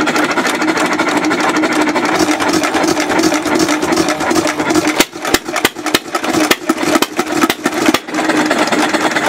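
Empire hit-and-miss gas engine running fast, at about 500 rpm, well above the slow speed it is built for. It chugs steadily, with a run of sharp, irregular knocks in the middle.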